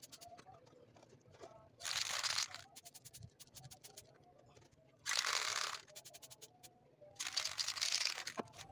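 An aerosol spray-paint can spraying in three short hissing bursts, each under about a second and a half, with faint clicks between them.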